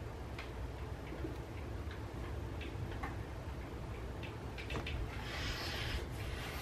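Fine-tip ink pens ticking and scratching on paper in short strokes, a light irregular patter of small clicks. About five seconds in there is a longer, scratchy rustle of hand and paper.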